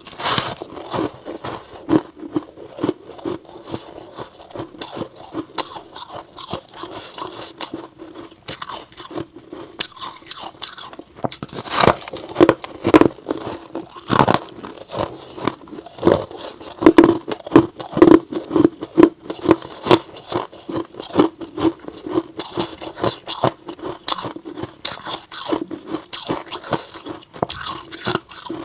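Close-miked biting and chewing of soft white frost ice: a steady run of short, crisp crunches as the fluffy frozen block is bitten and the pieces are chewed, loudest in the middle stretch.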